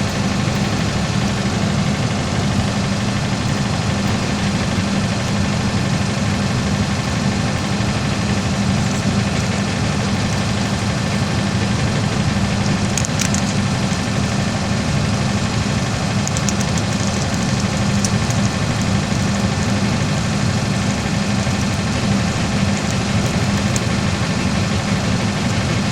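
An engine running steadily at idle, with a constant low drone and a few faint light clicks about halfway through.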